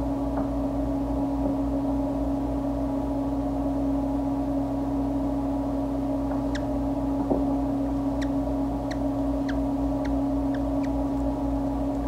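A steady, loud electrical hum made of several fixed tones, with about eight very short, high squeaks scattered through the second half.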